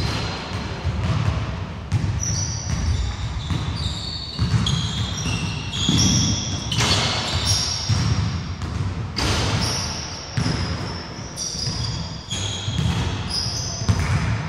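A basketball bouncing repeatedly on a wooden court, with many short high-pitched squeaks of sneakers on the floor and a few sharper impacts, echoing in a large hall.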